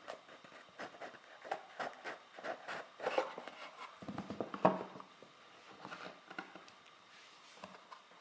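A small cardboard product box being opened and its packaging handled by hand: scattered light clicks, taps and rustles, a little louder about three seconds and four and a half seconds in.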